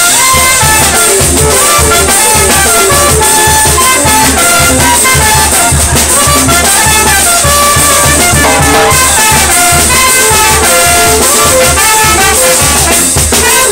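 Loud brass-band dance music: trumpets carrying a lively melody over a steady drum beat.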